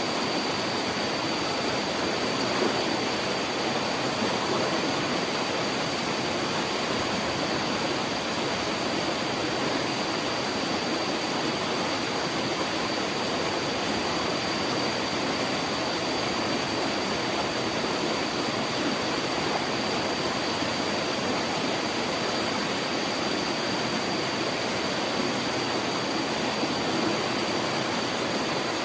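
Water rushing steadily in an irrigation stream, an even unbroken wash with a faint steady high tone over it.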